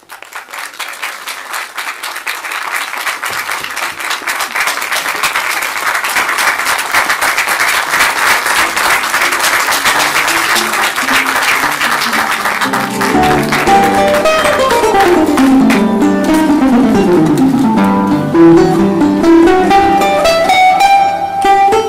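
Audience applause swelling up right after a scene's closing line. About halfway through, plucked-string music (guitar) comes in with descending runs of notes and carries on over the clapping.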